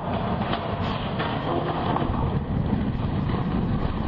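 A 1964 elevated steel water tank, about 90 tons, toppling over and crashing to the ground, its steel legs buckling. It makes a loud, continuous rumble with sharp metallic cracks about a second in.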